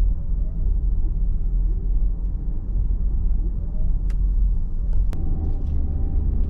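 Car on the move: a steady low rumble of road and engine noise, with two sharp clicks about four and five seconds in.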